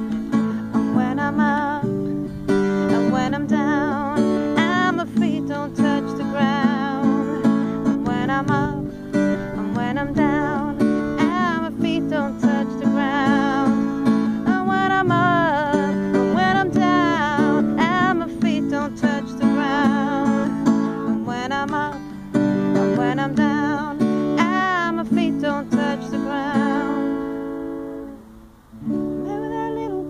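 Acoustic guitar strummed steadily under a woman's voice singing a slow, wavering melody with vibrato. Near the end the voice stops and the playing dips briefly before the guitar picks up again.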